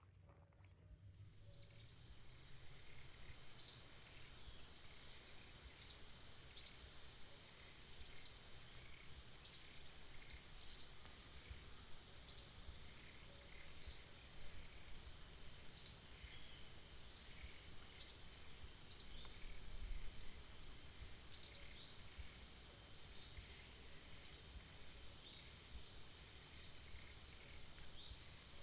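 Forest ambience: a steady high-pitched insect drone with short, sharp high chirps repeating irregularly every second or two.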